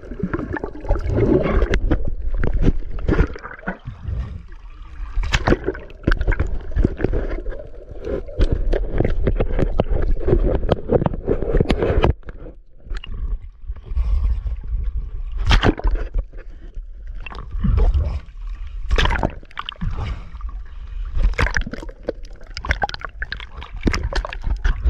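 Seawater splashing and sloshing, with many short, sharp splashes or knocks over a steady low rumble.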